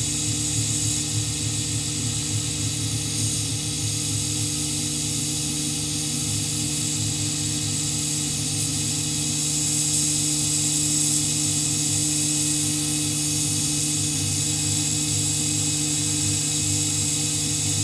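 Grizzly G0759 mill-drill running with a steady motor hum while its end mill cuts a slot through an acrylic sheet. A steady hiss from the nozzle aimed at the cutter runs over it, and the sound gets a little louder about halfway through.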